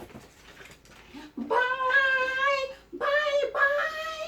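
Two drawn-out, high-pitched vocal cries, each more than a second long, the first sliding up at its start and the second rising slightly near its end.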